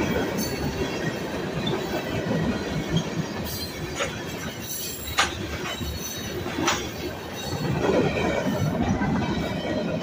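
Freight train cars, tank cars and covered hoppers, rolling past close by: a steady rumble of steel wheels on rail with a few sharp clicks as the wheels cross rail joints.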